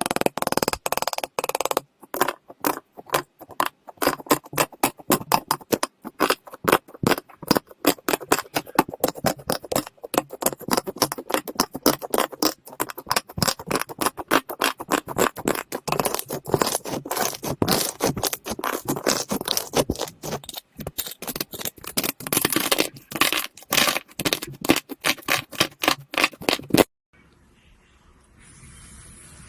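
Slime being squeezed and kneaded by hand, a dense run of rapid wet clicks and pops from trapped air. It stops suddenly near the end, leaving only a faint hiss.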